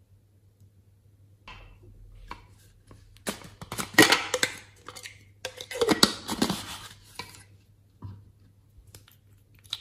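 Hard plastic containers and small objects handled close up, knocking and scraping against each other in two noisy spells in the middle, followed by a few single clicks near the end.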